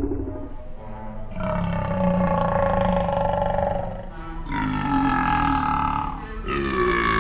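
A man's burp replayed at stepped-up speeds: a long, deep, slowed-down belch, then a shorter, higher one, then a third, faster and higher still, starting near the end.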